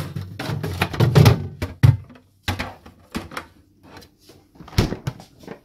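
A series of irregular knocks and clicks, dense for about the first two seconds and then sparser, with one loud thump near the end.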